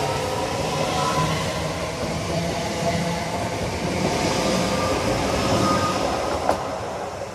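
Class 365 electric multiple unit pulling away past close by: a steady rumble of wheels on rail with a faint whine over it. There is a single sharp click about six and a half seconds in, and the sound begins to fade near the end as the last coach goes by.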